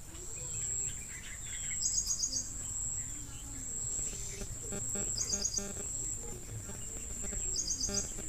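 Outdoor background ambience: a steady high-pitched shrill with a short burst of four quick chirps repeated about every two to three seconds, three times.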